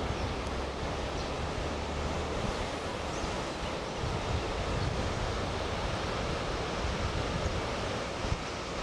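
Steady rushing of wind on the microphone, mixed with the distant running sound of a single Meitetsu Mo750 electric railcar travelling along the track.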